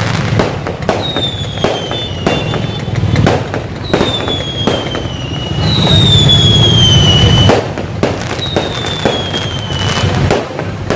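Fireworks going off overhead: a busy run of pops and bangs, with four whistling rockets whose whistles each slide down in pitch. The loudest stretch comes a little past the middle.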